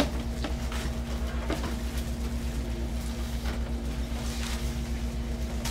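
Steady low hum with a pulsing rumble underneath, the background of a classroom, with scattered light clicks and rustles of whiteboards and supplies being handled at the desks.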